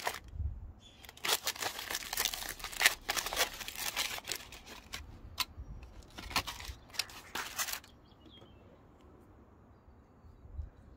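Aluminium foil crinkling and tearing as hands unwrap a baked beetroot, a dense run of crackles that stops about eight seconds in.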